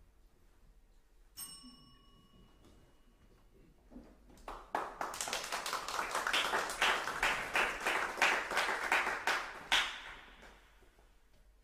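A single bright bell-like ping about a second in, ringing briefly. Then a small audience applauding for about six seconds, the separate claps plain, dying away near the end.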